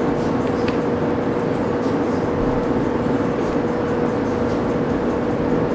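Steady mechanical drone with one constant mid-pitched tone over a broad rumble.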